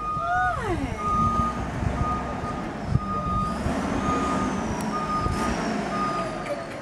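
Garbage truck's back-up alarm beeping steadily, about once a second, as the truck reverses, over the low running of its engine. A short falling squeal comes about half a second in.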